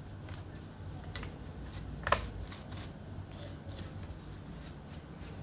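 Light handling sounds on a laptop: a string of small clicks and rustles, with one sharper click about two seconds in.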